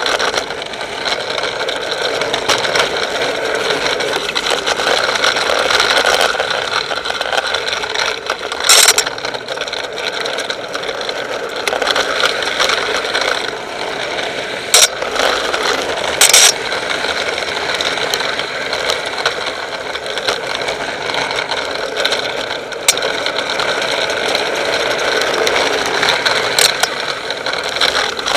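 Drift trike coasting downhill on asphalt: a steady rush of wheel and road noise with a running rattle from the frame, broken by a few sharp knocks.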